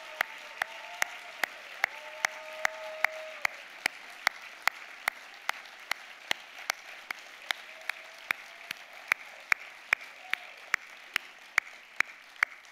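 Audience applauding, with one person's loud, evenly paced claps close to the microphone standing out over the crowd at about two and a half claps a second. The crowd's applause thins toward the end.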